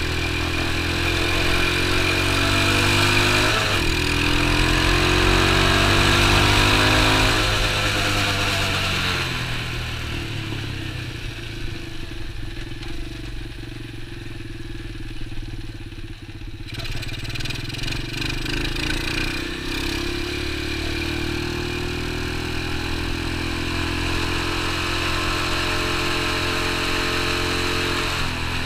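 X19 super pocket bike's small engine, heard from on the bike with wind rush. It revs up under acceleration for the first several seconds, then the revs fall away as the bike slows, running low and quiet for a few seconds. About halfway through it picks up again and settles into a steady cruise.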